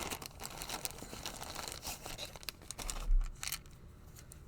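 Hands rummaging among small items on a desk: rustling and light clicks, with a low bump about three seconds in.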